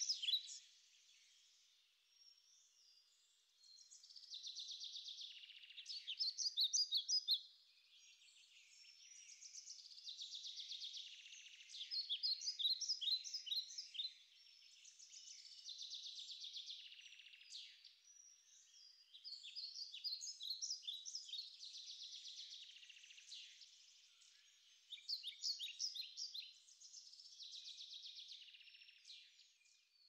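Small songbird singing in short phrases repeated every few seconds, each a run of quick, sharp, high notes.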